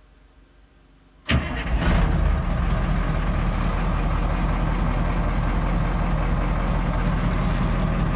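Cat 3208 turbo diesel engine, just swapped into a self-propelled grain cart, started for the first time: after about a second of quiet it fires almost at once with a sharp start, then runs steadily.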